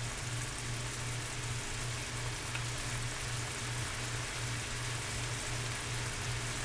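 Chicken breast tenders sizzling in a pan on high heat as their juices cook off, a steady even hiss, with a low steady hum underneath.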